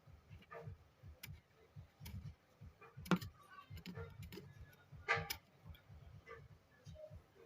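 Scattered light clicks and taps of small objects being handled, with louder knocks about three seconds in and again about five seconds in.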